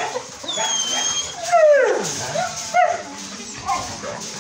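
Kennelled dogs whining and yelping: a thin high whine, then a loud yelp that falls steeply in pitch, followed by a few shorter yips.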